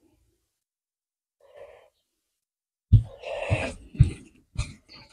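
Close-miked eating sounds: breathy mouth noises with four short, soft thumps about half a second apart, starting about three seconds in.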